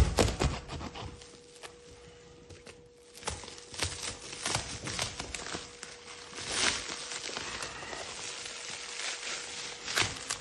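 Plastic bubble wrap and stretch film around a new motorcycle tyre crackling, rustling and tearing as it is cut open with a knife and pulled away by hand, with a loud knock right at the start. A faint steady hum runs underneath.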